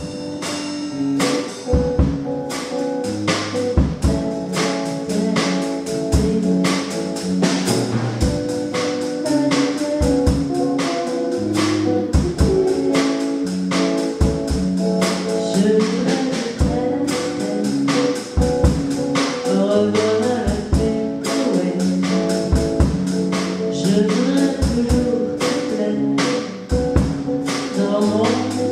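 A home band playing live: a Pearl drum kit keeping a steady beat with cymbal crashes, under an electric guitar played through a Marshall amp, with a woman singing into a microphone.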